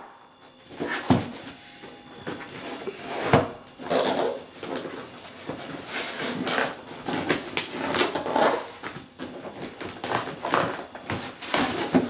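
Cardboard box being opened by hand: the flaps scrape, rustle and flex as they are worked loose and pulled back, with a few sharp knocks of cardboard against cardboard.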